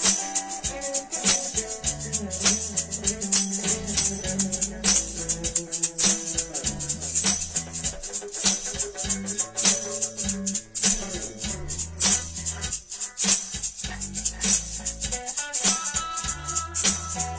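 Live band music with a tambourine shaken in a steady rhythm, its jingles the brightest sound, over bass notes and other instruments.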